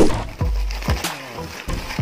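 Background music with a steady beat, over the rustle and knocks of hands handling a taped cardboard box in a black plastic bag.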